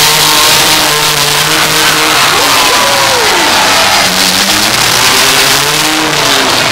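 Several demolition-derby car engines running and revving hard, their pitch rising and falling over a constant din.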